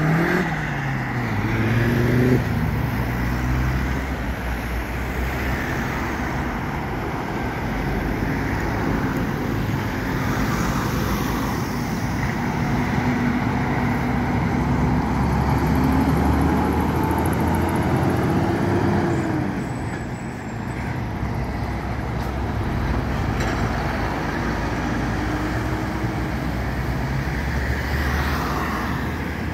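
Road traffic at a junction: articulated trucks and cars driving through, their diesel engines rising and falling in pitch as they pull away and accelerate, over steady tyre and engine noise.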